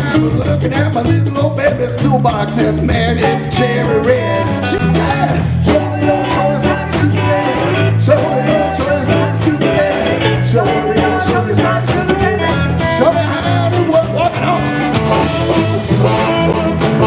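Blues-rock band playing an instrumental stretch: electric guitar lead over bass and a steady drum beat.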